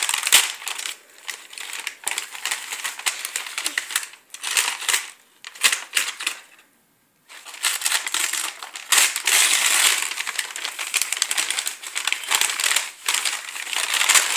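Gift-wrap paper crinkling and rustling in irregular bursts as a present is pulled open by hand, with a short pause about seven seconds in.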